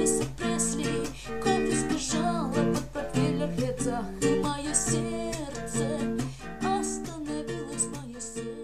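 Music: an acoustic guitar strumming chords in a steady rhythm, as an instrumental stretch of a song, getting quieter near the end.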